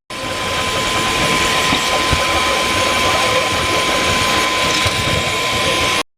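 Toybox 3D printer running through a print: steady mechanical whirring of its fan and motors with a constant high tone.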